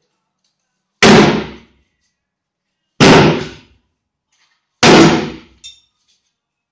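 Sledgehammer striking an old cast iron bathtub three times, about two seconds apart, each loud blow dying away over about half a second, with a small knock just after the third. The tub is being smashed into pieces so it can be removed.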